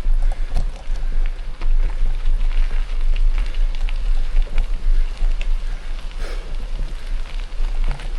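Mountain bike rolling over a gravel forest road: tyres crunching with many small clicks and crackles from loose stones over a steady low rumble.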